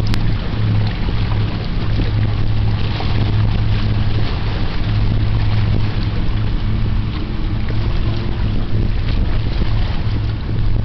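A boat engine running with a steady low drone, over a haze of wind and water noise, with one sharp click right at the start.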